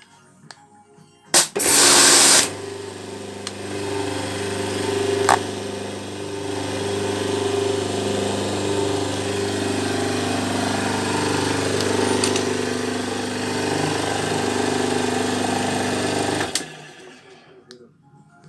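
Pressure washer running: a loud burst of spray hiss about a second and a half in, then the pump motor hums steadily under a spray hiss, with a couple of sharp clicks along the way. It cuts off suddenly near the end.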